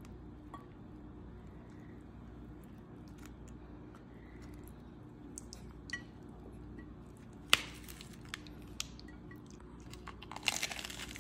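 Romaine lettuce wrap being folded by hand with faint crisp handling clicks, a single sharp crack about two-thirds through, then a crunching bite into the crisp lettuce near the end. A low steady hum runs underneath.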